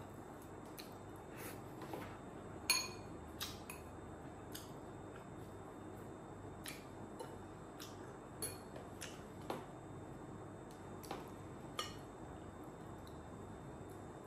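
Scattered light clinks and taps of a spoon against ceramic plates and a bowl during a meal, about a dozen in all; the loudest, about three seconds in, rings briefly.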